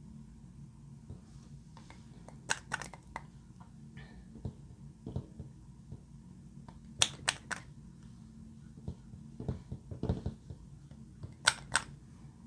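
Glossy slime being worked by hand, giving sharp clicking pops in small clusters of two to four, with a few duller squelches between them.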